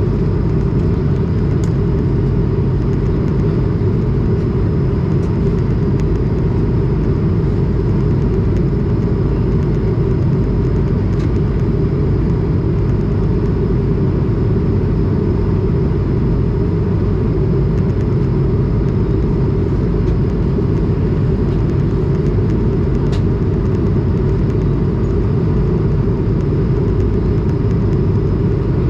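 Steady cabin drone inside an Airbus A220 in flight: its Pratt & Whitney PW1500G geared turbofans and the airflow over the fuselage make a loud, even, low rumble, with a faint steady whine above it.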